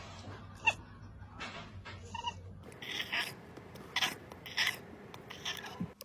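A domestic cat giving short, sharp cries, then a run of harsher, noisier calls about every half second to a second in the second half.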